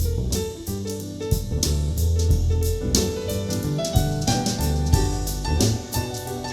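Soul jazz track with piano, drum kit and a strong bass line, played back through an in-ear monitor.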